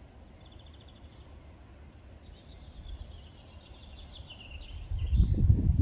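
A small songbird singing: a run of high chirps and quick trills. Underneath is a low rumble that swells near the end.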